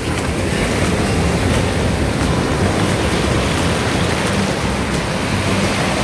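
Ocean surf: a steady rush of waves breaking and foaming water washing up the sand.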